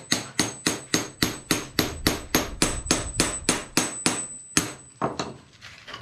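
Hammer driving a steel chisel under old ceramic floor tiles to knock them loose, a fast, even run of sharp blows at about four to five a second. The blows stop a little after four seconds in, with a couple of scattered knocks after.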